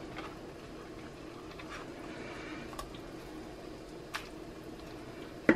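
Thick meat sauce ladled with a plastic ladle onto lasagna noodles in a roasting pan: soft wet squishes and plops, a sharp click about four seconds in and a louder knock at the very end, over a faint steady hum.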